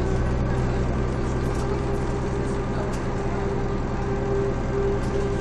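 Mercedes-Benz OM447hA six-cylinder diesel engine of a Jelcz M122MB city bus running steadily, heard from inside the bus. A low drone with a steady whine above it holds at one pitch throughout.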